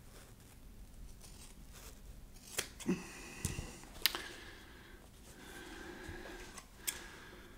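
Quiet handling of foam pieces and utility shears on a cloth-covered table: a few light, scattered clicks and taps, with the shears picked up near the end.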